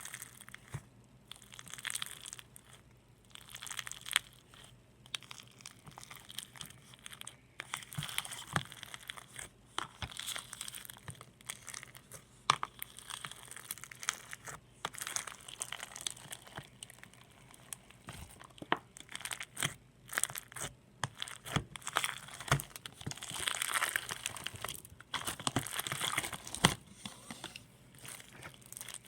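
Slime being squeezed, stretched and poked by hand, giving irregular crackles, clicks and small pops.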